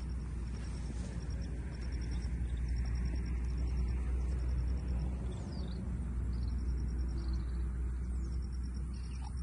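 Open-pasture ambience: a steady low rumble of wind on the microphone, with short trains of rapid high chirps from insects repeating about once a second and a few faint bird calls.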